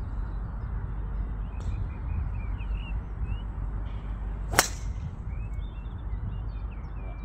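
A golf driver striking a ball off a tee, one sharp crack about four and a half seconds in. A steady low wind rumble sits on the microphone throughout, with small birds chirping.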